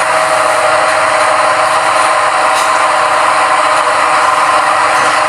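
CNC lathe running a machining pass, a steady, loud mechanical hiss with a constant hum underneath.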